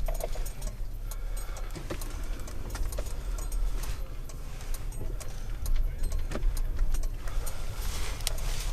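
Car running with a steady low rumble, with scattered small clicks and rattles throughout.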